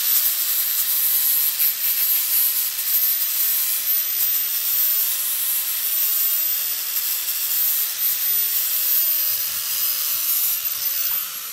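Electric angle grinder running against a steel exhaust pipe, grinding the pipe end down to a clean surface for welding. A steady motor whine runs under the scraping, and about eleven seconds in it is switched off and the whine slides down as the grinder spins down.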